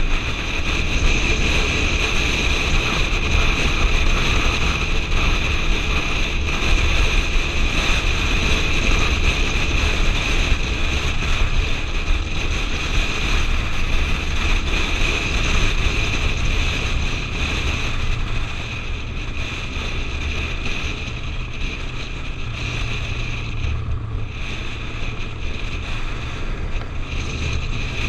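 Wind rushing over a helmet-mounted camera's microphone on a moving motorcycle, with the bike's engine running underneath at road speed. The noise eases slightly about two-thirds of the way through.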